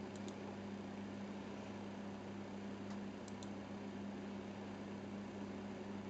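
Steady low hum with a hiss of room noise. A few faint, short high ticks come near the start and again about three seconds in.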